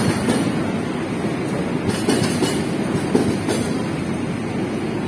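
Passenger train coaches rolling past a station platform: a steady rumble of wheels on rail, with irregular clacks as the wheels cross rail joints.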